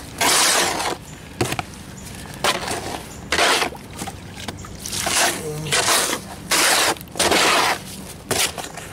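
Small trowel scraping against a mortar tub as it stirs water into rapid-set mortar powder. The rough scrapes come irregularly, about every second or so.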